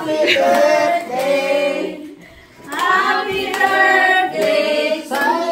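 A group singing a birthday song together, children's voices among them, with a short pause about two seconds in.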